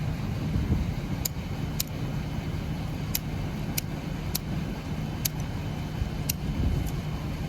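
Light, sharp clicks, about eight of them at uneven intervals, from the 2012 Kawasaki KX450F's gear shifter being worked through the gears with the engine off. A steady low hum runs underneath.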